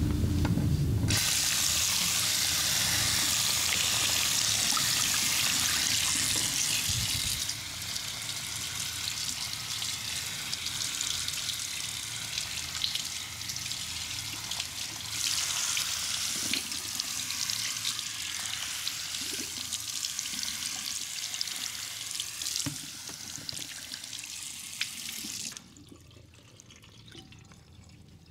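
Water running and splashing steadily, louder for the first several seconds, then cutting off suddenly near the end.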